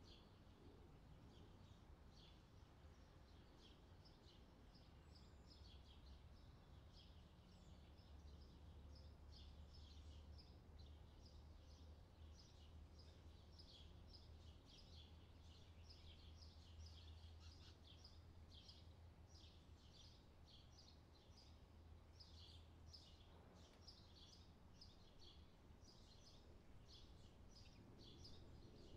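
Faint outdoor ambience with small birds chirping, quick high notes repeating several times a second, over a faint low rumble that swells through the middle.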